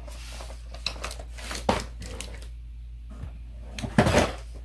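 Cardboard toy boxes with plastic windows being handled and swapped: packaging rustling and crinkling with a few knocks, and a louder burst of handling about four seconds in.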